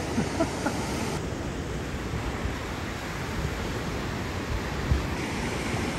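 Ocean surf breaking on a beach, a steady wash, with wind buffeting the microphone; a single thump about five seconds in.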